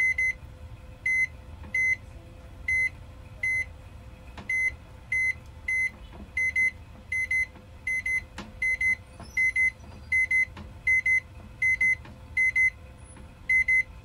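Whirlpool MWX303 ES microwave oven's control beeper giving one short, high beep for each press of a touch-panel key, about twenty beeps at uneven intervals. Each key of the repaired touch panel is registering.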